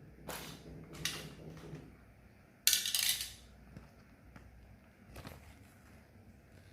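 Packaging of a small microphone box being handled and opened by hand: a few short rustles and scrapes, the loudest a little under three seconds in.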